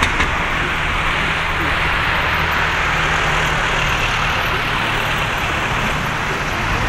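Boeing 787-8 jet engines, Rolls-Royce Trent 1000 turbofans, at takeoff thrust during the takeoff roll: a loud, steady rushing roar over a low rumble.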